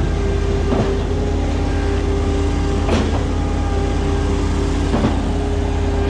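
Skid steer's diesel engine and hydraulics running steadily under load, driving a Mud Demon concrete line pump during pumping. Three short knocks come about two seconds apart.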